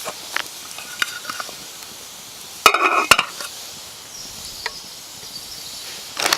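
Cream and spinach sizzling in a steel pan as it is stirred, with small utensil clicks and scrapes. About three seconds in comes one loud metallic clank with a short ring.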